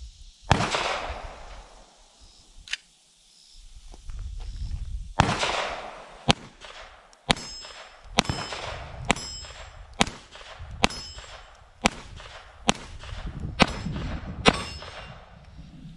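A string of about a dozen .22 LR shots from a Chiappa 1911-22 pistol, spaced roughly a second apart over the second half, with steel plate targets ringing after hits.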